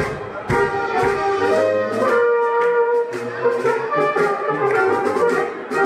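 Background music led by brass instruments, with occasional percussive strokes.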